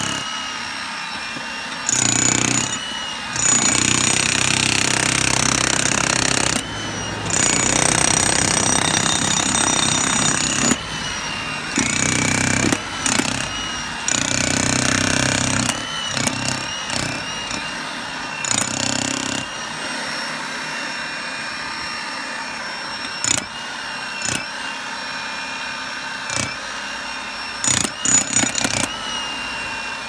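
Hilti TE 1000-AVR electric breaker hammering its chisel into stony ground, running in stretches of a few seconds with short breaks in between, quieter in the second half, with a steady high motor whine underneath.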